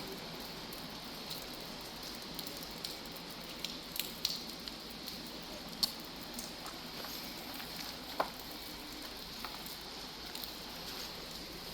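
Steady rain falling: an even hiss with scattered ticks of individual drops, a few of them sharper and louder.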